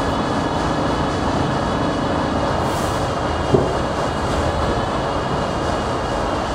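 R68 subway car heard from inside while running: a steady rumble of the train with a high buzzing tone over it. A single sharp click about three and a half seconds in.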